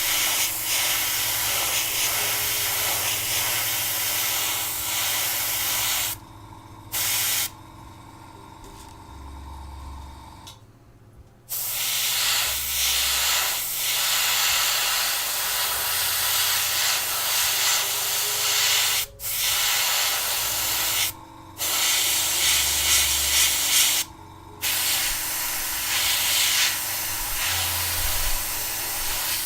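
Airbrush hissing as it sprays metallic paint, the air cutting off several times as the trigger is released: once for several seconds about a quarter of the way in, and briefly a few more times later.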